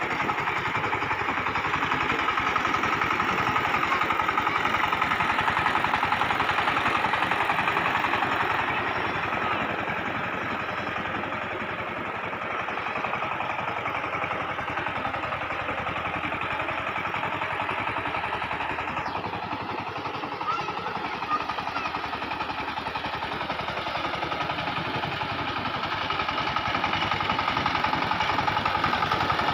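SIFANG 20-horsepower power tiller's single-cylinder diesel engine running steadily under load, its wheels and plough churning mud in a flooded paddy field. It grows somewhat fainter in the middle as the tiller moves away, then louder again near the end as it comes back close.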